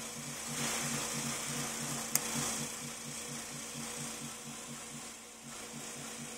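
TSK APM-90A wafer prober stepping from die to die while probing a wafer: a fast, even mechanical pulsing with a hiss that comes and goes. There is one sharp click about two seconds in.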